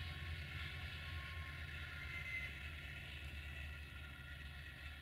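Diesel locomotives of a passenger train, a GM class 64 and a class 82 diesel-hydraulic, running with a steady low engine drone and a faint whine and hiss above it, fading slowly as the train moves off.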